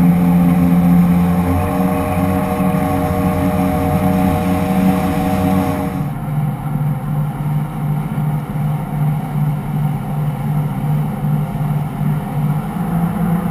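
Motorboat engine running, with water rushing along the hull. About six seconds in, the sound changes abruptly to a lower engine note that pulses about twice a second.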